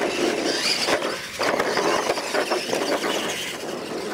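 Electric radio-controlled monster trucks (Tamiya Clod Buster-based) racing on a dirt track, their motors and gears whining as they accelerate and the tyres scrabbling over the dirt.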